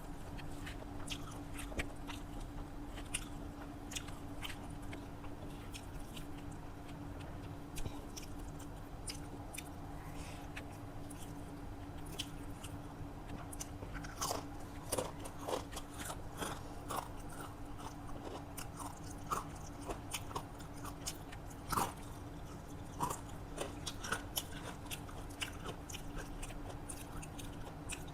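A person chewing and biting mouthfuls of rice and crisp fried vegetables close to the microphone, with frequent small crunches and mouth clicks that get busier about halfway through. A steady low hum runs underneath.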